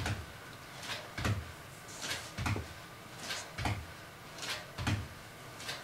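Feet landing on the floor during ISO lunge hops: a low thud about every 1.2 seconds, each with a short hissy sound just before it.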